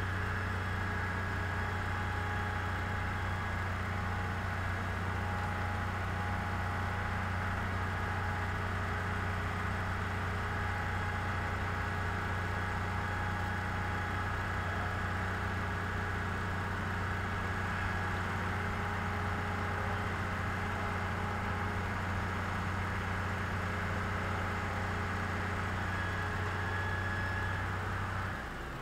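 Large mobile crane's diesel engine running steadily with a deep hum while it hoists a heavy load; near the end its note steps slightly higher.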